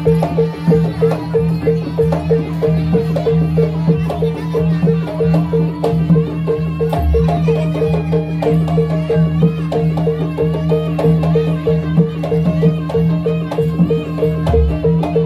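Javanese jaranan (kuda kepang) accompaniment music playing loud: a fast, evenly repeated percussive note over a steady low hum, with drum strokes and a wavering melody above.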